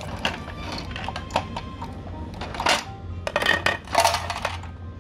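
Hard plastic toy train pieces clicking and clattering as they are handled and set down on a wooden floor. There is a busy run of knocks and clinks in the second half.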